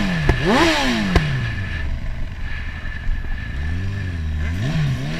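Motorcycle engine heard from the rider's seat: the revs rise and fall twice in quick succession at the start, with two sharp clicks, then it runs at steadier, lower revs, with another brief rise and drop in revs near the end.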